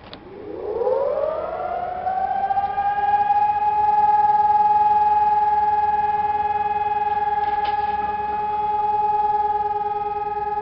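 Civil defence siren sounding a test: it rises in pitch over about two seconds as it winds up, then holds a steady tone.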